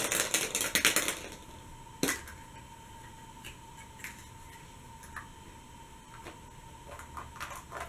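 Hollow plastic surprise egg being handled and opened: a quick rattle of clicks for about the first second, a sharp plastic click about two seconds in, then scattered light clicks as the egg halves and the small toy inside are handled, with a short flurry of clicks near the end.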